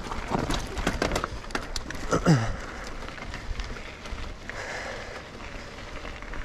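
Electric mountain bike ridden over a rough, stony track: dense clicks, crackles and rattles from the tyres and bike on loose rock. About two seconds in comes one short, loud sound that falls steeply in pitch.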